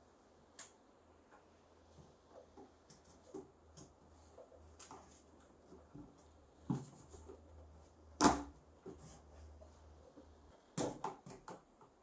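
Handling noise from a corrugated plastic vacuum hose being worked onto a plastic pipe fitting on a bucket lid: scattered light knocks and clicks, the loudest about eight seconds in and a quick cluster near the end.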